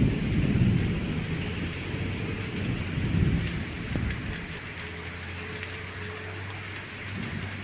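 Rainstorm: a steady hiss of rain under low rumbles of distant thunder that swell and fade. A low steady hum joins about four seconds in.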